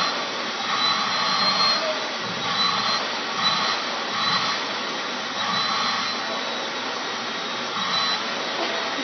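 Vacuum cleaner running steadily through its hose as the nozzle is drawn over a cat's fur, a rushing sound with a thin high whine. The rush swells and eases about once a second as the nozzle moves back and forth.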